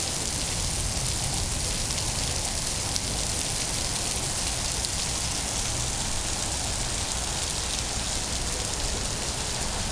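Heavy rain pouring down steadily, a dense even hiss of rain hitting the ground and standing water.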